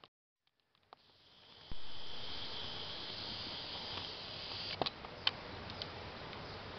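Brief silence, then stream-side outdoor ambience that begins abruptly: a steady high-pitched insect drone over a soft hiss, fading after a few seconds, with a couple of light clicks about five seconds in.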